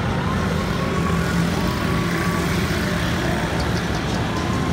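Steady road traffic noise on a busy city street, with the engines of motorbikes and auto-rickshaws blending into one even noise.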